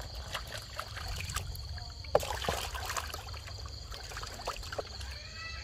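Water sloshing and splashing in a plastic basin as hands rub and rinse fish, with many small splashes and a louder splash about two seconds in.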